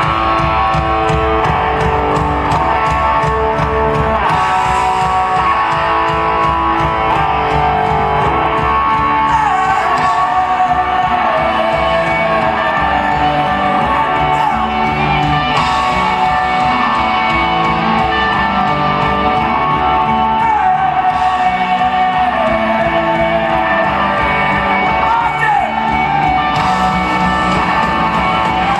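A rock band playing live on electric guitars and bass guitar, with a steady beat.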